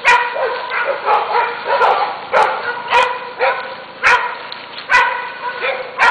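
Dogs barking without letup, a sharp bark about every two-thirds of a second.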